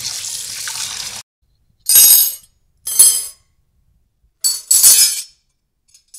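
Tap water running into a sink cuts off about a second in. Then glass clinks sharply four times, about a second apart, each with a short bright ring.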